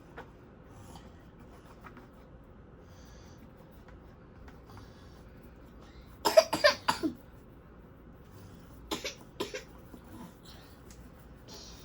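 A person coughing: a quick cluster of coughs about six seconds in, then two shorter coughs about three seconds later.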